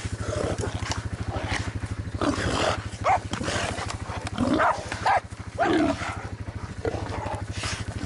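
Dogs holding a feral boar: a scuffle of short, loud animal cries and growls, several of them rising and falling in pitch. An engine idles steadily underneath.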